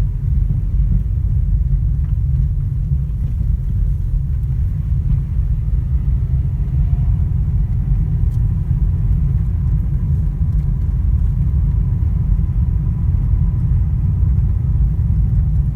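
Lada Vesta driving over a rough road surface, a steady low rumble of tyres and suspension, with a faint knock about eight seconds in. The knock is the kind of suspension knocking over bumps that the owner is trying to record.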